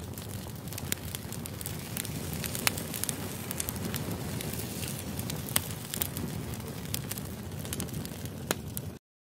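Steady low rumbling noise with scattered crackles and sharp clicks, cutting off suddenly near the end.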